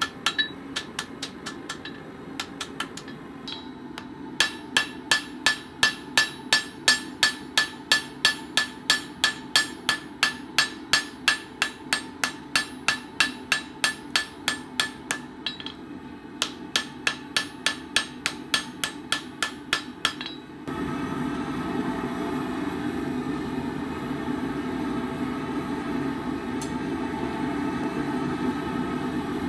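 Hand hammer striking a red-hot rebar knife blade on a steel anvil, forging it to shape: steady blows about two and a half a second, each with a bright ring, with a short pause partway through. About two-thirds of the way in the hammering stops and a steady rushing noise takes over, the gas forge burning.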